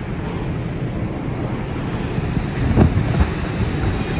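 Inside an R142 subway car as the train pulls out of the station: a steady low rumble of the car starting to roll, with a clunk about three seconds in.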